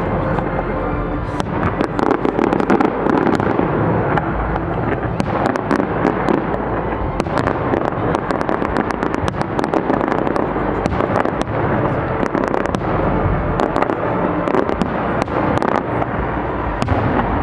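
Fireworks display: a rapid, continuous run of sharp bangs and crackling reports over a dense, steady din.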